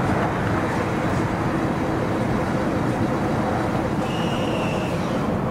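Airbus A380's four jet engines running at go-around power as the aircraft climbs away after an aborted landing: a loud, steady rumble.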